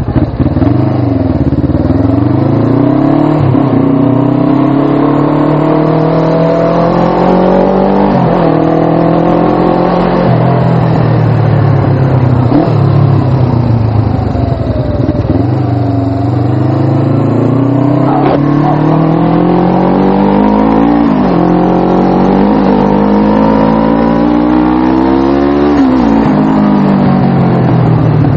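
Suzuki GS500's air-cooled parallel-twin engine pulling hard, its pitch climbing over a few seconds and then dropping back, over and over, about seven times.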